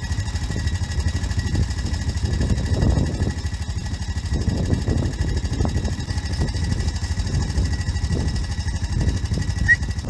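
A small engine running steadily, with a fast, even low pulsing.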